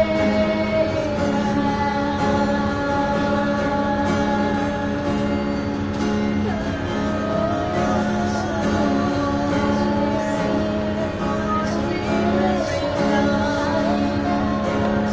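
A small group of women singing a worship song together, accompanied by an acoustic guitar.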